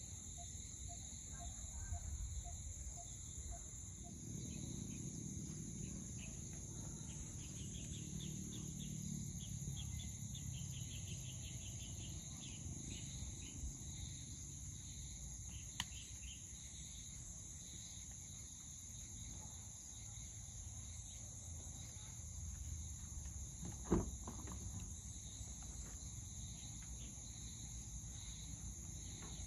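Insects chirring steadily in a high, even drone, with a faster pulsing trill joining for a few seconds in the middle. A single sharp knock sounds near the end.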